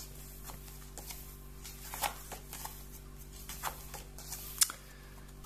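Pages of a paper comic booklet being turned and handled: soft rustles and light taps, the sharpest a little before the end, over a faint steady hum.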